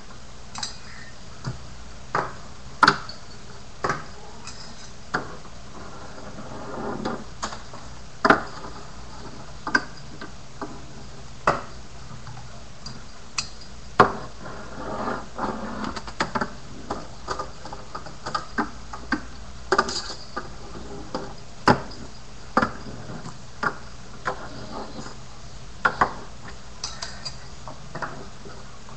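Finger BMX toy bike clacking on a wooden board: irregular sharp clicks and taps as it lands and knocks against the wood, with a couple of short stretches of its little wheels rolling and scraping.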